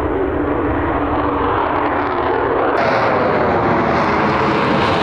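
Fighter jet's engine roar during a takeoff launch, a steady roar growing a little louder and turning suddenly sharper and brighter about three seconds in.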